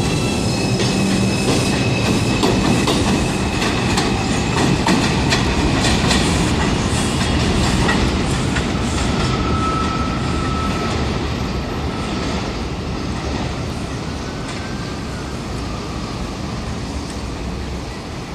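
R142 subway train rolling away along the elevated line, its steel wheels clattering over the rail joints with a faint intermittent squeal, fading slowly.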